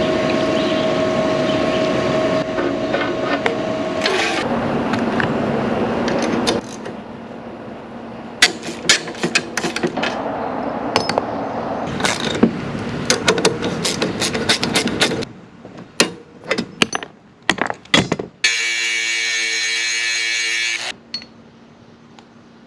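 Workshop work on a steel roller: a steady whir for the first few seconds, then a long run of metal clanks and knocks, then a power tool runs steadily for about two seconds near the end.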